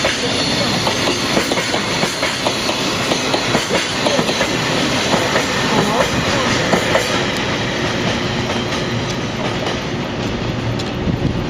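Freight train rolling past, its wagon wheels clattering over the rail joints in a steady, dense run of clicks.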